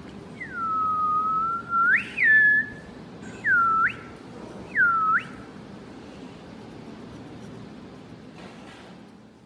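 A person whistling: a long note that falls and levels off, a couple of quick rising-and-falling whistles, then two short swoops that dip and rise again, over a steady low hum.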